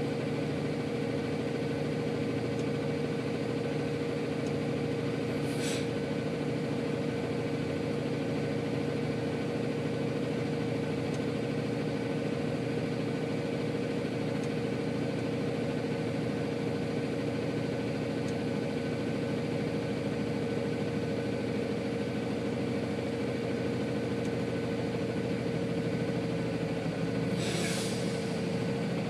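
Coal truck's diesel engine idling steadily, with two short hisses, about six seconds in and again near the end.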